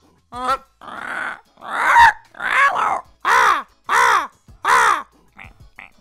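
A man's vocal impression of a Canada goose: a series of about five loud, harsh honks, each about half a second long. A few faint short calls follow near the end.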